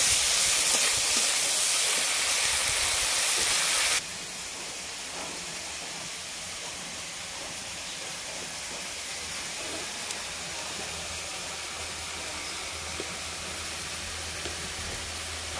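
Sliced onions sizzling in hot oil in a kadai, frying toward reddish-pink: a steady hiss that drops abruptly to a quieter hiss about four seconds in.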